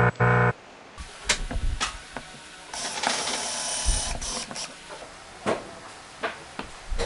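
Clicks, knocks and mechanical rattling of hand-worked tools, with a buzzy stretch of about two seconds in the middle; two short pitched beeps open it.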